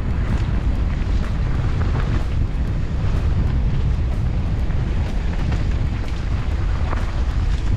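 Wind buffeting the microphone of a mountain bike on a trail descent, a steady low rumble, with scattered clicks and rattles from the bike and tyres over the ground.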